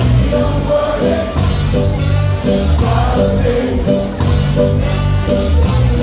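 A live ska band playing a reggae song through a large street sound system, with singing over a bass line and a steady beat.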